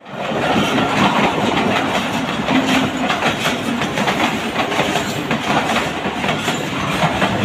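Pakistan Railways passenger coaches passing close by, a loud, steady clatter of steel wheels on the rails with a rapid stream of clicks over the joints.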